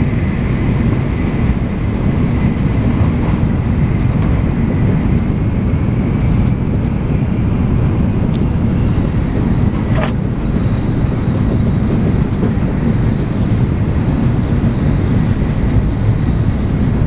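Tokaido Shinkansen bullet train running at speed, heard from inside the passenger cabin: a steady low rumble of wheels on rail and rushing air. There is one brief click about ten seconds in.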